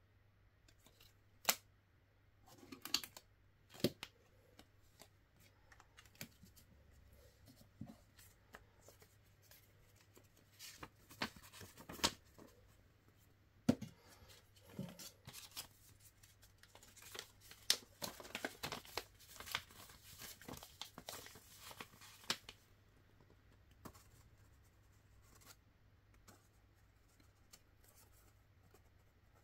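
Card game packaging being torn open and handled: scattered sharp clicks and taps, then a dense crackling tear lasting a few seconds past the middle, dying down to a few faint ticks near the end.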